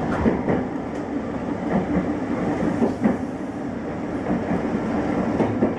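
Passenger train running along the track, heard from inside the front car: a steady rumble of wheels on rails with scattered clicks.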